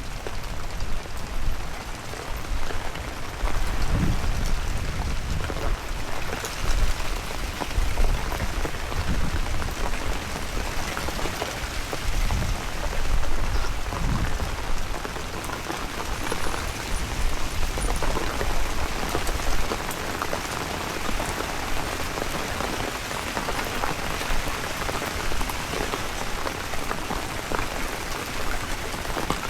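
Steady heavy rain hissing and pattering. Low rumbling gusts of strong wind hit the microphone through the first half and ease off after that.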